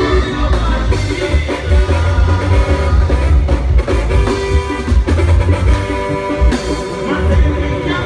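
Live band music, loud and continuous: a lead singer over drums, keyboard and heavy bass.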